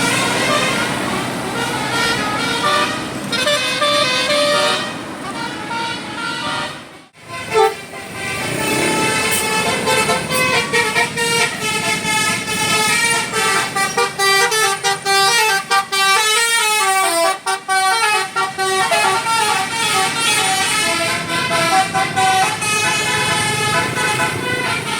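Basuri 'telolet' multi-tone bus horn playing a melody in quick stepping notes. It breaks off briefly about seven seconds in, then another horn melody starts.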